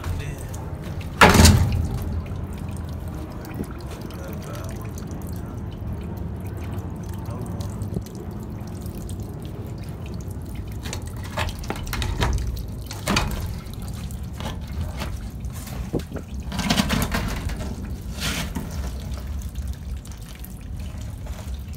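A thin stream of water trickling and dripping from the open end of a cut 10-inch PVC condenser-water pipe onto wet gravel, under a steady low hum. There is a sharp knock about a second in and a few lighter bumps later.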